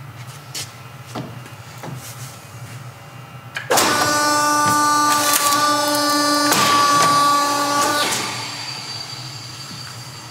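A 23-tonne truss C-press running a pressing cycle to press nail plates into a roof truss joint. After a few faint knocks, its motor starts suddenly about four seconds in and runs with a steady whine for about four seconds, with a brief change about halfway through, then fades away.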